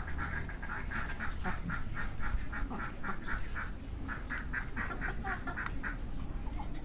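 A bird calling in a rapid string of short, repeated calls, about four a second, which stop about a second before the end.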